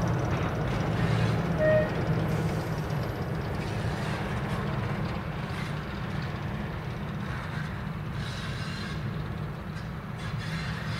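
Diesel locomotive engine running steadily with a low hum, and a brief high tone a little under two seconds in.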